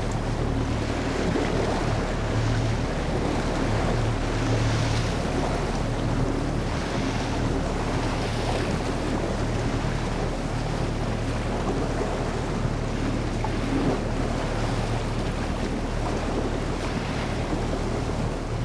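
A boat motor running steadily under way, with water rushing past the hull and wind buffeting the microphone.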